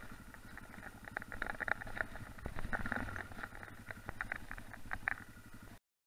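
Yamaha XT660X's single-cylinder engine running at low revs in a fast even pulse while riding a gravel track, with scattered clicks and rattles from stones and the bike. The sound cuts off suddenly near the end.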